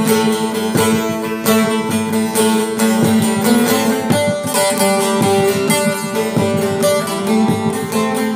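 Bağlama (long-necked Turkish saz) played solo: quick, dense pick strokes with a melody moving over steady droning notes.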